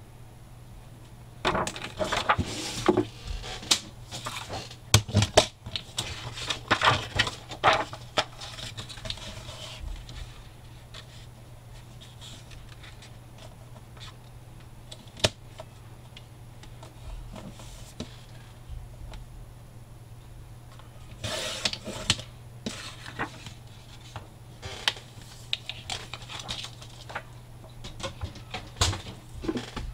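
Stiff patterned paper being handled and cut on a sliding paper trimmer: rustling, clicks and scrapes as the sheet is lined up against the rail and the cutting head is drawn along it. The handling comes in two busy spells with a calmer stretch and a single click between them.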